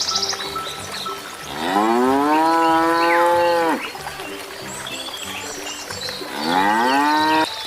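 Cow mooing twice, two long calls that rise in pitch at the start and then hold, the second one shorter. Soft background music plays underneath.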